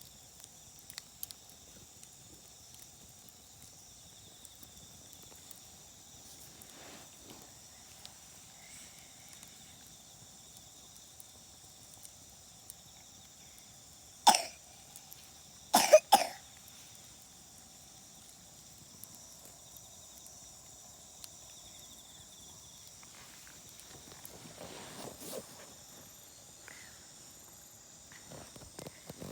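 A person coughs once, then twice more in quick succession about a second and a half later. Underneath is a faint, steady high-pitched background with scattered small crackles from a campfire.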